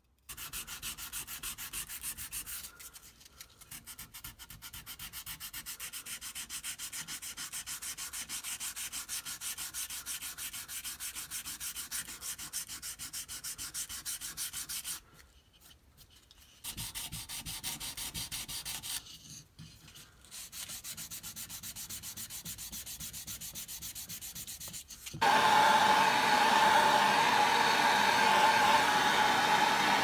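Pocket knife handle scales rubbed back and forth by hand on sandpaper, fast even scraping strokes with a few short pauses. About 25 seconds in, a louder steady motor whir with a humming tone cuts in suddenly.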